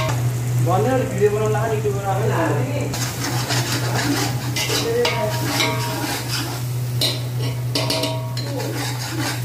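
A steel ladle stirs and scrapes chopped onion and garlic frying in a little oil in an aluminium pot, with a light sizzle: the onion and garlic are being browned to golden. A steady low hum runs underneath.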